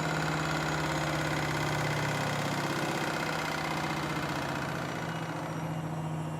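Washing machine spinning at high speed on a 1600 rpm spin: a steady motor hum with a whine above it, easing off slightly near the end.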